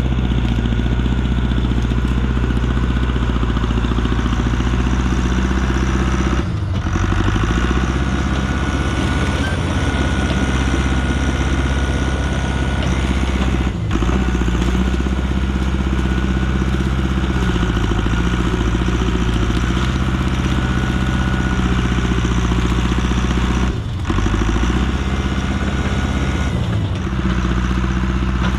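Large engine of heavy land-clearing equipment running hard and steadily, its note dipping and shifting briefly a few times as the load or throttle changes.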